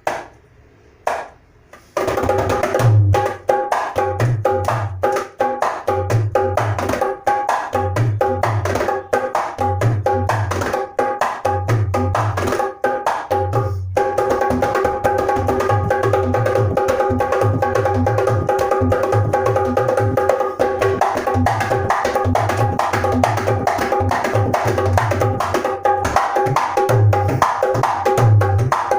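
A dholak, the two-headed Indian barrel drum, played in a fast continuous rhythm: deep pulsing bass strokes against quick ringing strokes on the higher head. A few single taps come first, the full playing starts about two seconds in, and it breaks off briefly about halfway through.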